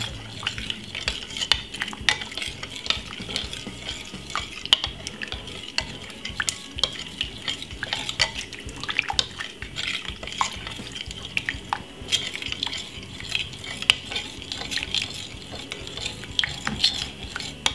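A metal spoon stirring hot liquid in a glass Pyrex measuring jug, clinking irregularly against the glass again and again.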